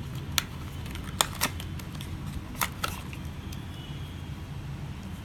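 Charger and plastic box parts of a smartphone being handled: a few sharp clicks and taps, spaced irregularly, over a steady low hum.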